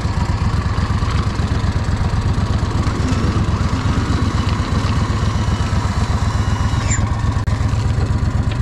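Mud motor's air-cooled engine running steadily on a small boat, with a fast, even exhaust pulse.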